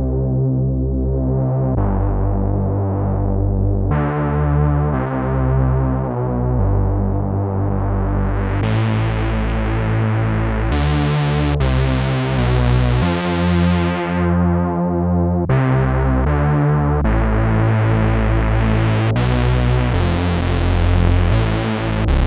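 GForce Oddity 2 software synthesizer, an emulation of the ARP Odyssey analog synth, playing a sequence of sustained low notes and chords that change every second or two. The tone grows much brighter around the middle, then darkens again.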